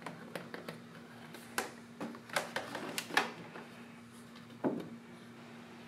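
Scattered light clicks and knocks, about half a dozen, from hands handling the fittings and container of a vacuum coolant refill kit, over a faint steady hum.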